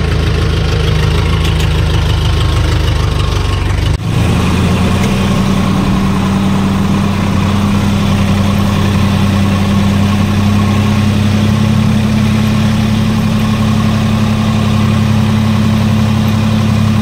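Tractor diesel engine running steadily. About four seconds in there is a cut to a different steady engine hum, heard from the driver's seat as the tractor drives along.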